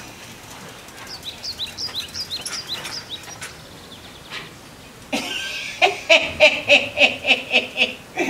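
Birds chirping in a quick series of short, falling high chirps. About five seconds in, a man breaks into loud laughter in quick repeated bursts, about four a second.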